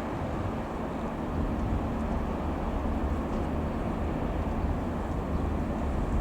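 Single piston-engined Robin R3000-140 light aircraft flying past, its engine and propeller a steady drone.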